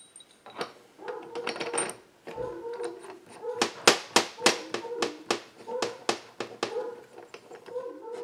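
Sharp metallic clicks and taps, a few a second and loudest in the middle, as a seal driver on a threaded rod is fitted and turned on the crankshaft of a chainsaw crankcase, over a steady low hum.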